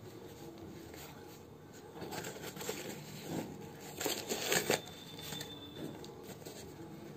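Rustling and rubbing handling noise as a new synthetic-leather sneaker is turned over and flexed in the hands, coming in uneven bursts with the loudest about four seconds in.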